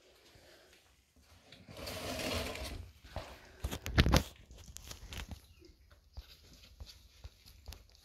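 Rustling and scraping on a cardboard box as a kitten moves about inside it, with a cluster of sharp knocks about four seconds in, then scattered small scratches and taps.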